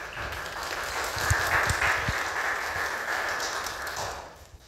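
A small audience applauding, a steady patter of clapping that fades out near the end, with a few low thumps in the middle.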